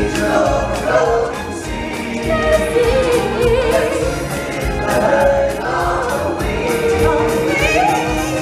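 Stage-show music: a group of singers over a band backing with a steady beat.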